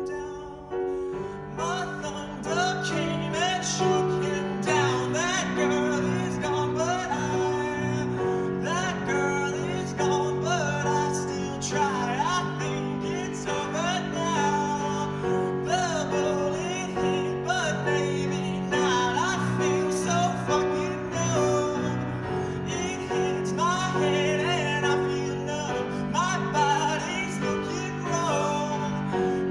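Live pop song performance: singing in sliding, wordless vocal lines over a steady keyboard and instrumental backing.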